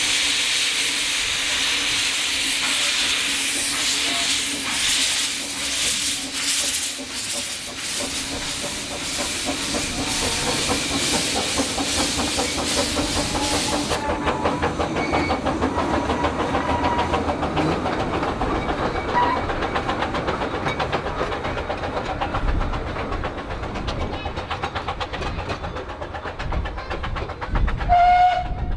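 Narrow-gauge 0-4-2T steam tank locomotive hissing loudly as steam escapes at its cylinders while it stands and starts off. About halfway through the hiss drops away and the engine is heard chuffing past with its carriage, the wheels clicking quickly over the rails.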